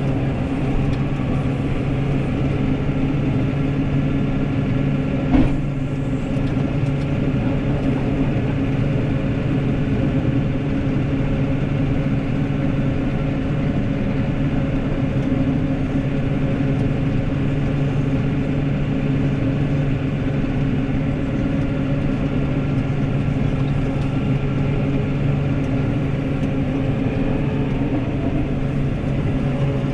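New Holland tractor's diesel engine running steadily while the tractor pushes a front snowplow blade through snow. A single sharp knock comes about five seconds in.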